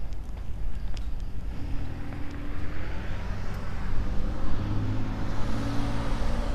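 A car passing on the street, its engine hum and tyre hiss swelling to a peak near the end, over a steady low wind rumble on the microphone.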